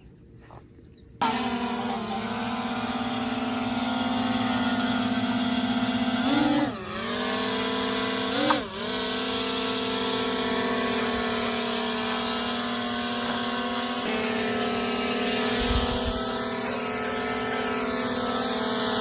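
Quadcopter drone's propellers buzzing steadily close by, dipping in pitch twice as the motors change speed.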